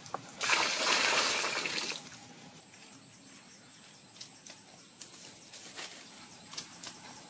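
Water poured from bamboo tubes gushing into a stone-lined pool for about a second and a half. About two and a half seconds in it gives way to a steady high-pitched whine that holds to the end, with a few faint ticks.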